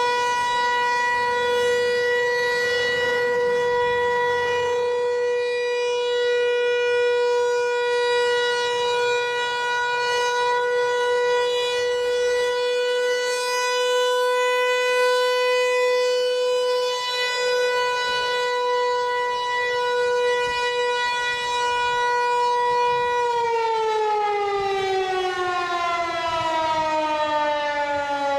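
Federal Signal Equinox outdoor warning siren sounding a steady, loud tone during its monthly test. About 23 seconds in it starts winding down, its pitch falling steadily.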